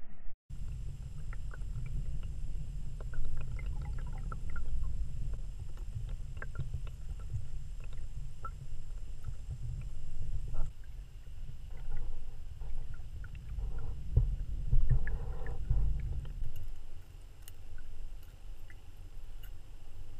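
Muffled low rumble of moving water picked up by an underwater camera's microphone, with scattered light clicks and ticks that come thicker for a few seconds after the middle.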